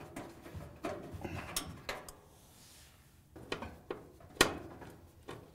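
A 1/4-inch nut driver turning out the hex-head screws of a Maytag dryer's sheet-metal heater housing: scattered light metal clicks and scrapes, with one sharper click about four seconds in.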